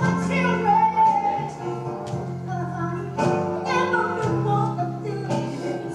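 Music: a song with a woman singing over instrumental backing with a steady bass line.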